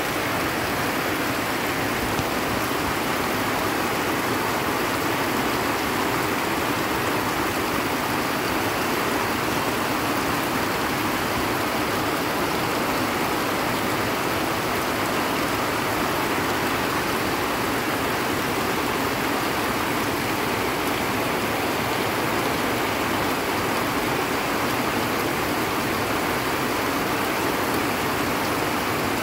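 Heavy, steady tropical downpour pouring onto trees and foliage: the torrential rain of a red rainfall warning.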